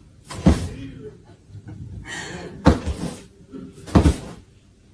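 A series of sharp thumps or knocks, three loud ones spaced about one to one and a half seconds apart with softer knocks in between, and a brief hiss in the middle.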